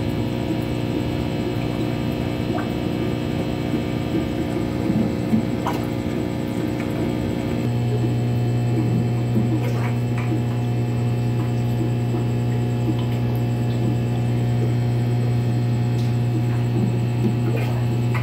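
Steady electrical hum of aquarium equipment, an air pump or filter, with a strong low tone and several higher steady tones; the low hum grows stronger about eight seconds in. Faint small ticks are scattered through it.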